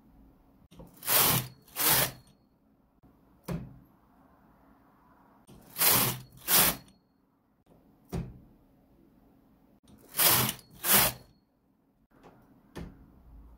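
Brother KH893 knitting machine with KR850 ribber: the carriage is pushed across the needle beds in two quick passes, a loud sliding rasp each time, and this happens three times. Between each pair comes a single sharp click as the ribber is racked one step.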